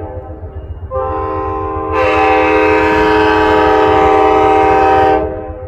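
Amtrak P42DC Genesis locomotive's multi-note air horn sounding one long blast as the train departs: it comes in softly about a second in, goes full about a second later, holds steady, and cuts off near the end.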